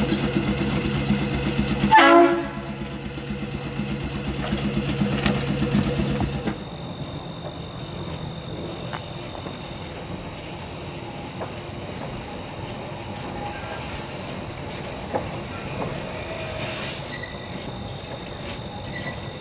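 Electric interurban trolley car on the rails, with a steady hum and a sharp, loud knock about two seconds in. The hum stops about six and a half seconds in, leaving quieter, even running noise.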